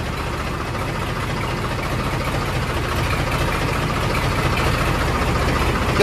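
Ford 3600 tractor's three-cylinder diesel engine running steadily, heard from the driver's seat, getting slowly a little louder.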